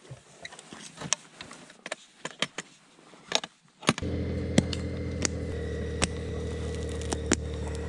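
Clicks and clatter of riding gear being handled and boot buckles snapped shut. About four seconds in, a motorcycle engine is heard idling steadily, with the clicks going on over it, and it cuts off abruptly near the end.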